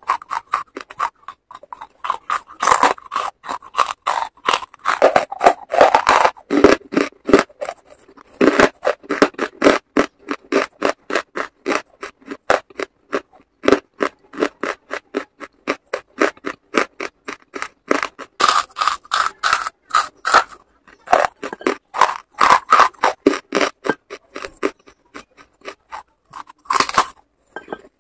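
Charcoal lumps being bitten and chewed close to the microphone: rapid dry crunches, several a second, with a short pause about halfway through.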